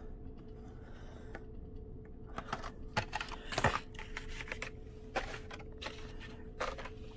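Irregular light clicks and taps of carded Hot Wheels cars in plastic blister packs being handled and set down, with a few louder knocks in the middle, over a faint steady hum.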